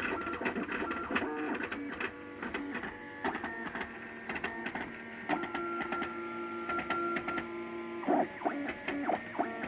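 MakerBot Thing-O-Matic 3D printer's stepper motors whining in steady tones that jump to new pitches as each move changes, with quick ticks, while the printer lays down plastic layer by layer.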